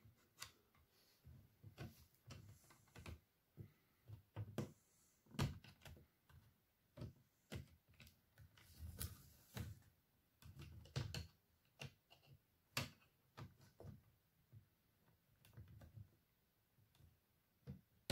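Faint, irregular clicks and scrapes of a small screwdriver prying a plastic trim piece off a laptop's screen housing, with hands handling the laptop.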